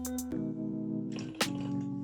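Background music: sustained instrumental chords that change every half second or so, with a sharp percussive hit about one and a half seconds in.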